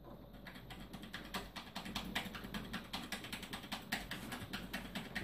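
Computer keyboard key tapped rapidly and repeatedly, about five or six clicks a second, to get into the BIOS setup screen while the PC boots.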